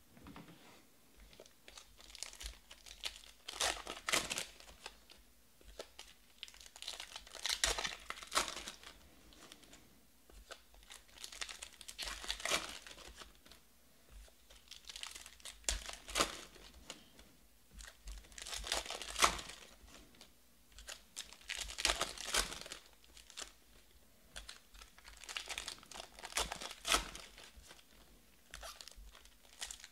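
Plastic trading-card pack wrappers crinkling and tearing as packs are opened one after another, with cards handled in between. The crinkling comes in bursts every three to four seconds.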